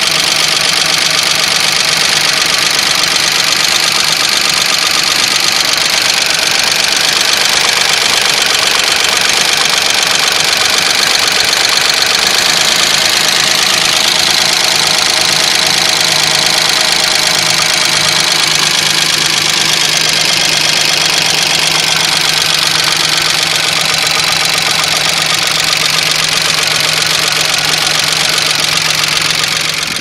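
Nissan VG33E V6 idling steadily with its right-side valve cover off, the exposed rocker arms and valvetrain giving a fast, even mechanical chatter. The hydraulic lifters have just been cleaned, and only a light tick remains on this bank.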